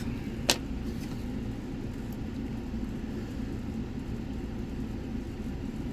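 One sharp click about half a second in as a lock pick works the pins of a Lockwood 570 oval pin-tumbler cylinder, over a steady low background rumble.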